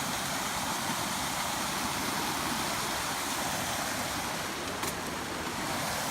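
Steady rushing of flowing water, like a stream or small waterfall, an even hiss with no breaks.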